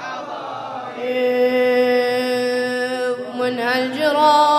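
Unaccompanied chanted singing of a Shia latmiyya (lament). The voice holds one long steady note, then breaks into a wavering, ornamented run of notes near the end.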